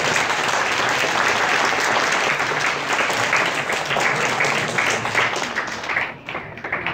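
Audience applauding, a dense clatter of many hands that thins out to scattered claps near the end.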